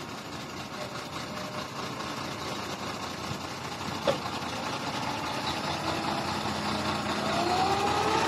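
Diesel engines of a Hitachi ZX350-5G hydraulic excavator and an XCMG mining dump truck running steadily and growing louder as the excavator works. There is a single sharp knock about four seconds in, and a rising whine near the end.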